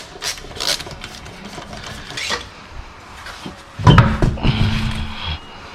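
A few scattered tool clicks, then about two thirds of the way in a power tool motor starts with a jolt and runs steadily for about a second and a half before stopping.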